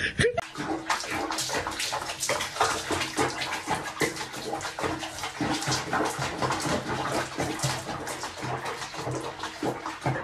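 Water splashing in a bath, a dense run of quick irregular splashes.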